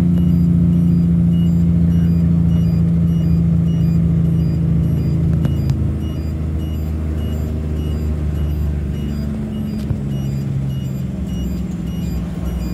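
Log truck's diesel engine running steadily under way, heard from inside the cab as a low drone; about six seconds in the engine note eases off and changes pitch.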